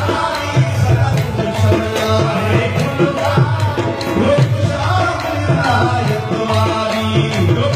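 Live Sindhi Sufi devotional singing (kalam) by a group of faqirs, voices over a steady hand-drum beat.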